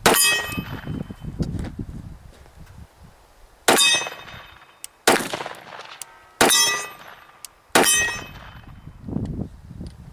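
Five 9mm shots from a Glock 26 Gen 4 pistol, each with a sharp crack and a ringing, metallic tail. One comes right at the start; the other four follow about four seconds in, roughly a second and a quarter apart.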